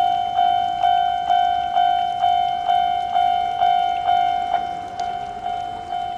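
Japanese level-crossing warning alarm ringing: an electronic bell striking a little over twice a second, each ding fading before the next. After about four and a half seconds the strokes turn weaker.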